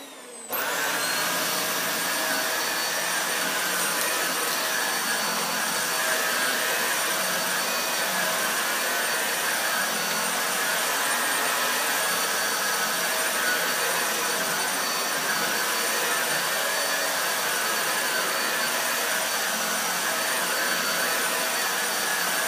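Hoover WindTunnel Air upright vacuum cleaner running with its brush roll on: a steady rush of airflow with a constant motor whine. It comes up to full level suddenly about half a second in.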